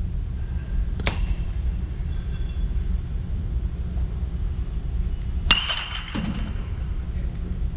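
Baseball bat striking tossed balls in batting practice: two sharp cracks with a short ring, about a second in and a louder one about four and a half seconds later, followed by a dull thud. A steady low rumble runs underneath.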